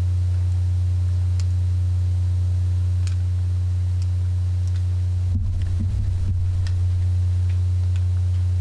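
Loud, steady electrical mains hum in the sound system. A few faint clicks come from laptop keys being pressed, and there is a brief low bump of handling noise about five seconds in.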